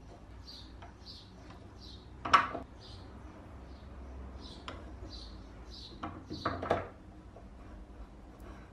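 Restored French adjustable wrench clinking against a steel nut held in a vise. One sharp metal clink comes a little over two seconds in, and a quick run of clinks and scrapes follows around six to seven seconds. A small bird chirps repeatedly in the background.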